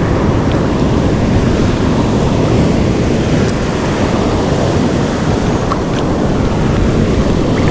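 Loud, steady rush of ocean surf mixed with wind buffeting the microphone.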